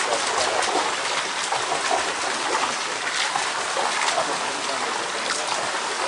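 Water running and splashing steadily into concrete trout ponds.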